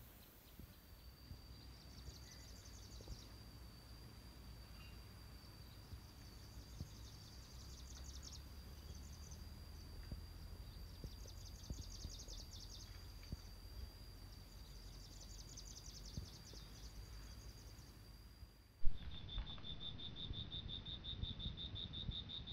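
Insects calling: a steady high whine with repeated bouts of rapid chirring above it. About 19 seconds in, a sharp knock is followed by a louder, steadily pulsing insect buzz.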